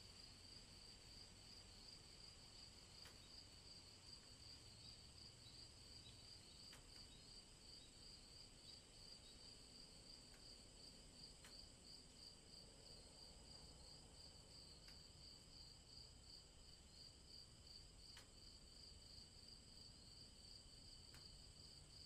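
Faint crickets chirping steadily in a pulsing, unbroken chorus, with a few faint clicks scattered through it.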